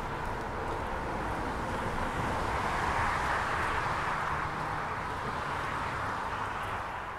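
Steady roar of highway traffic heard through the woods, swelling slightly a few seconds in.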